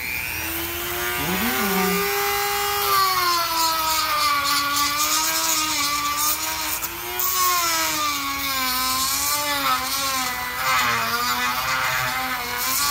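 Small high-speed electric grinding tool running under load, its motor pitch sagging and wavering as the part is pressed to the wheel, with a gritty hiss of abrasion on top. It is grinding down the underside of a chromatic harmonica slider.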